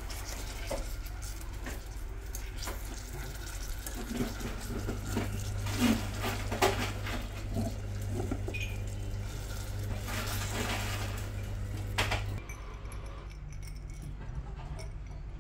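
Sugar syrup bubbling in a nonstick saucepan as strawberries on bamboo skewers are dipped and turned in it, with a few sharp knocks of the skewers against the pan. Under it runs a steady low hum.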